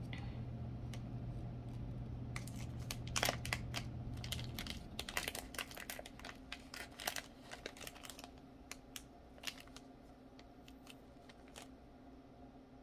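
Plastic packaging of a wax melt sample crinkling and crackling in irregular bursts as it is handled and opened. A low steady hum in the background stops about four seconds in.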